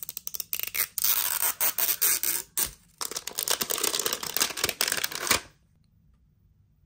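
Clear plastic wrapper crinkling and tearing as it is pulled off a toy capsule, a dense run of crackles with a brief pause about halfway, stopping about five and a half seconds in.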